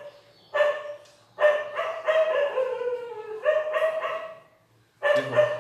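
Whiteboard marker squeaking against the board as lines are drawn: a short squeak, then a long squeal of about two seconds that slides slowly down in pitch, then another of about a second.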